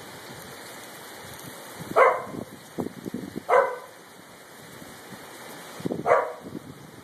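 A dog barks three times, a second or two apart, over a steady hiss of rain and small hail falling on pavement and gravel.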